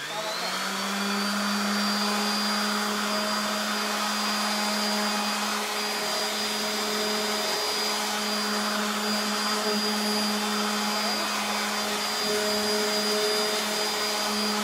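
DeWalt random orbital sander switched on, spinning up right at the start, then running steadily with a high whine as its pad lightly sands a fabric-covered dress form.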